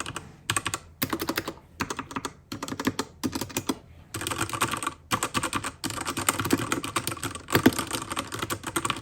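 Fast typing on a 60% mechanical keyboard with Otemu Red linear switches: rapid keystrokes in short bursts with brief pauses, turning into an unbroken run of typing about four seconds in, then stopping at the end.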